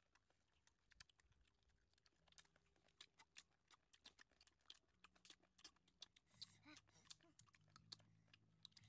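Faint, close-up chewing and lip-smacking of two people eating roasted chicken legs with their fingers: a quick, irregular run of small wet clicks and smacks.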